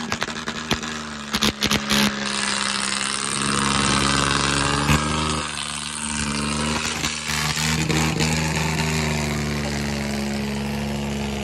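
Diesel tractor engines running at a steady speed, with a few sharp clicks in the first two seconds.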